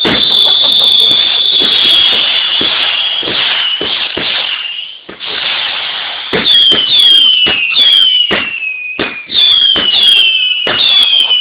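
Whistling fireworks. A high continuous whistle with crackling runs through the first half. Then a quick series of shots follows, each a bang with a short whistle falling in pitch, about two a second.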